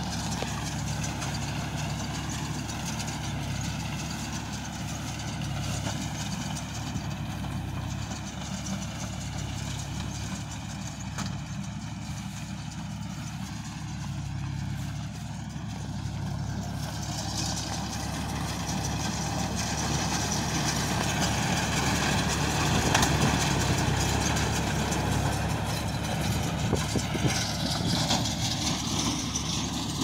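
John Deere 5042D tractor's diesel engine running steadily under load while it pulls and drives a square straw baler through the field. It grows louder past the middle.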